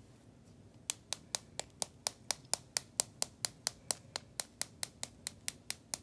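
Small plastic Brusho powder pot tapped with a finger, sharp clicks about four or five a second, starting about a second in, shaking pigment powder out through one hole in its lid.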